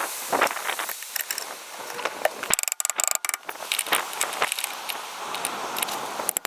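Metal hand tools clinking, knocking and scraping on car steering parts, with a quick run of sharp clicks about two and a half seconds in.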